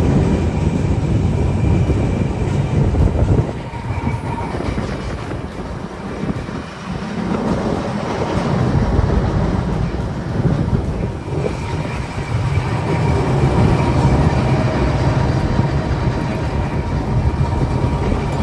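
Blackpool-built open-top boat tram running on street rails: a steady rumble of wheels and running gear with a faint steady whine, easing off for a few seconds near the start.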